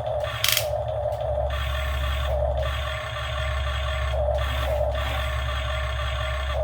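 Radio-controlled model excavator's motors and hydraulics working: a steady whir, with stretches of harsher noise switching on and off as the machine moves, and a sharp click about half a second in.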